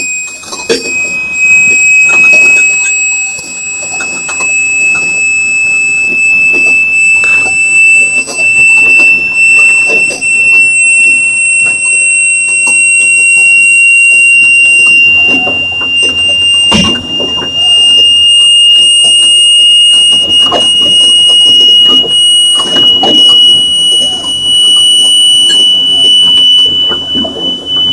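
A loud, continuous high-pitched whine of unknown origin that climbs slowly in pitch: the horrible, tormenting noise that the boat's crew cannot identify and half-jokingly take for a sonic weapon.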